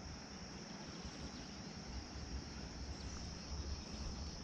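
Steady, faint high-pitched chorus of insects in grass, over a low rumble.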